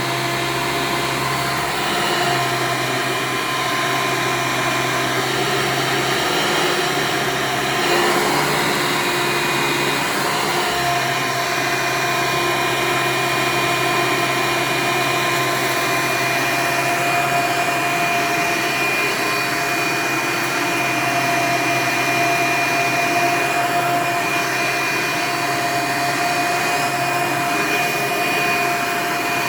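Hoover Elite upright vacuum cleaner running steadily, its motor whining throughout. The whine's pitch shifts a little about a third of the way in.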